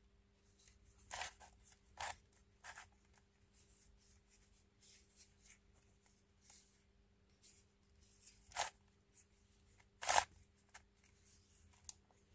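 Plastic 3x3x3 cheeseburger-printed cube being twisted by hand: a handful of sharp clicks and clacks as its layers turn, with faint ticks in between and the two loudest clicks near the end.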